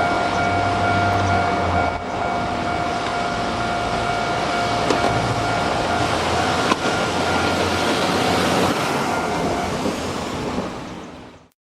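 Kotoden electric train running, with a steady whine over the running noise and a few light clicks. The sound fades away and cuts off shortly before the end.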